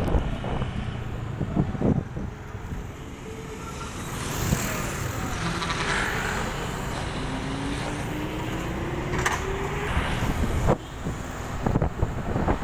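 Motorcycle riding on a road: a steady engine rumble with wind buffeting the microphone. Partway through, an engine tone rises steadily for a few seconds.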